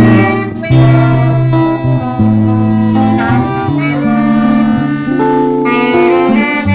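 Small informal band of electric guitar, saxophones, trombone and trumpet playing a tune together, with a horn melody over a moving low line of held notes.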